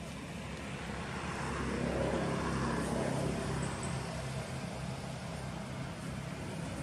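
A motor vehicle going by: steady engine and road noise that swells over the first two seconds or so, then eases off a little.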